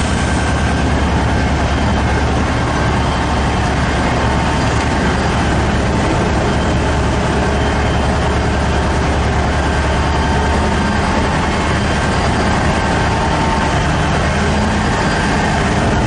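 Engine of a giant Komatsu cabless haul truck running steadily as the truck creeps along, a loud low drone with a faint steady whine above it.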